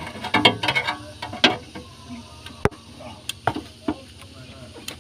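Pliers clicking and knocking against the thin sheet-metal inner fender of a Suzuki Carry as it is bent upward, clear of the tie rod it was rubbing against when the steering turned. A quick run of knocks in the first second and a half, then a few single sharp clicks.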